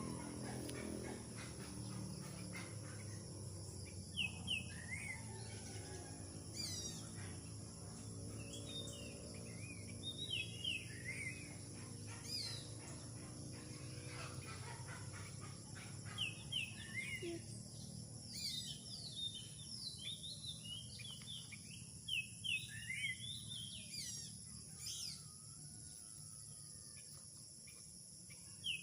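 Several birds chirping and calling in short, quick phrases over a steady, high-pitched drone of insects, typical of crickets. A low hum underneath fades out by about the middle.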